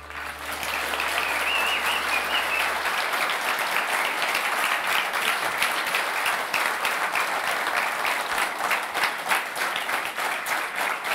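Audience applauding, the clapping growing more even and rhythmic in the second half.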